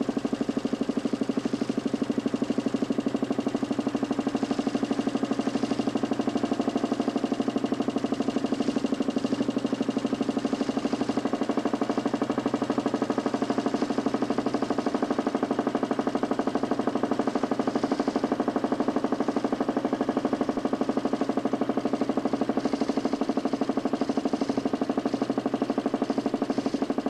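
DC motor spinning a homemade 40 cm plywood Nipkow disc in a mechanical television, running steadily at picture speed. It makes a continuous, rapidly pulsing mechanical drone.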